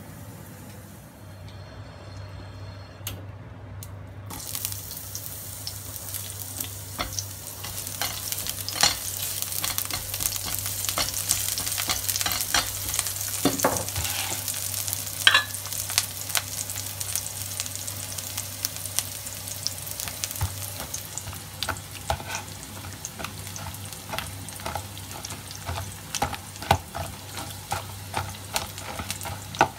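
Sliced shallots frying in hot oil in a pan: a steady sizzle that starts about four seconds in, with many sharp crackles and pops of spattering oil.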